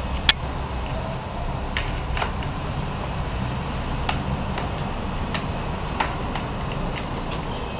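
Irregular light plastic clicks and taps from a cat pawing at a plastic Play Circuit ball-track toy and knocking its ball about in the track. One sharper click comes just after the start, and a steady low hum runs underneath.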